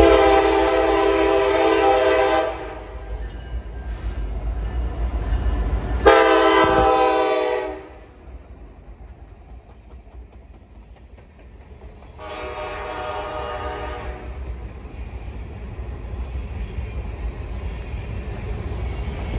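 Loud Nathan K5LA five-chime air horn on a CN SD70M-2 locomotive sounding three blasts: one of about two and a half seconds, another about six seconds in, and a third near twelve seconds. Between and after the blasts the grain train's covered hopper cars roll past with a steady low rumble and wheel clatter.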